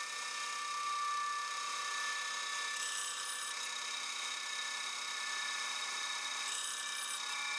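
Band saw running and slicing through wooden blocks, played back at five times actual speed: a steady whir of several held tones over a high hiss that starts and stops abruptly at the edit.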